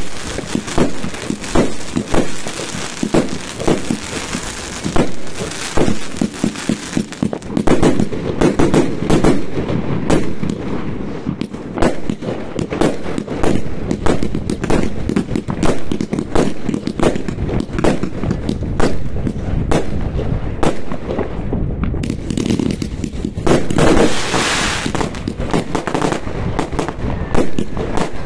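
Fireworks going off in a continuous barrage: many sharp bangs a second with crackling, and a spell of hissing crackle near the end.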